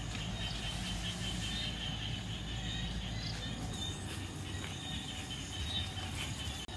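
Outdoor rural ambience: a steady low hum with faint high chirping over it.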